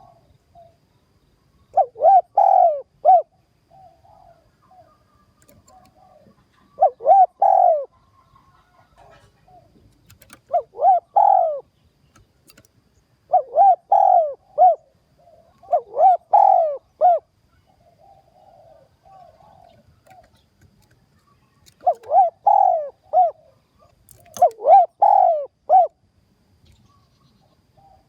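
Spotted dove cooing: seven phrases of three or four low coos, one every two to four seconds, with faint single notes between them.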